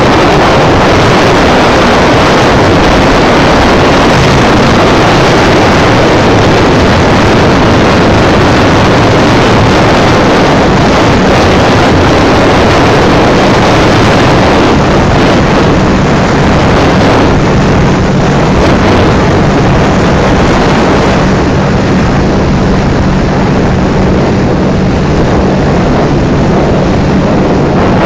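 Powerboat engines running steadily at speed, a loud continuous drone with a steady engine hum, mixed with wind and water rushing past the microphone.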